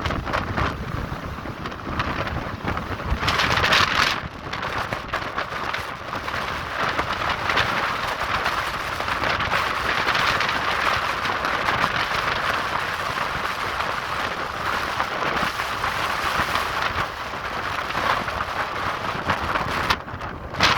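Windstorm gusting hard: a continuous rushing hiss that surges and eases, with low rumbling buffeting on the microphone. There is a brief sudden lull just before the end.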